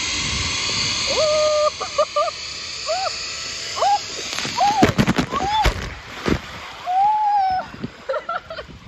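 Zip line trolley running along its steel cable with a steady hiss, then the rider's feet striking the water in a few splashes about five seconds in. Short high calls come and go throughout.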